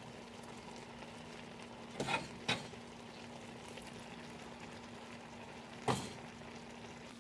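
Large pan of greens and vegetables simmering with a faint steady sizzle and a low hum. About two seconds in, cooked potato and sweet potato chunks tip into the pan with a couple of soft thuds. A single sharp knock comes a little before the end.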